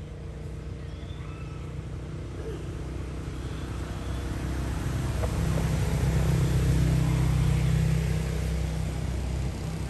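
A motor vehicle's engine hums steadily, growing louder over several seconds and easing slightly near the end. A few short bird chirps come in the first few seconds.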